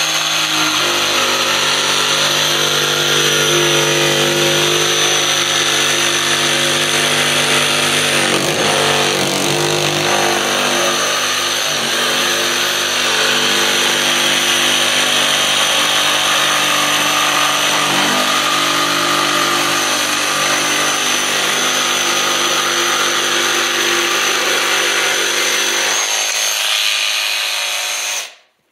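DeWalt DCS335B cordless barrel-grip jigsaw cutting a curve through 1¼-inch maple: the motor and reciprocating blade run steadily under load. The saw stops suddenly near the end.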